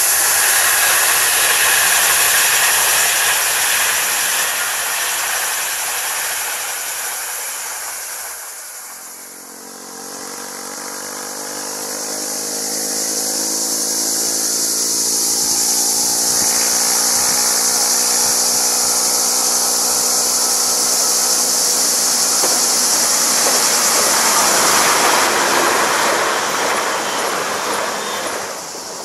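A distant electric InterCity train running past with rolling noise under a steady high hiss. After a break, a Siemens Desiro class 460 electric multiple unit approaches with an electric hum of several steady tones, and its rolling noise swells as it runs close by near the end.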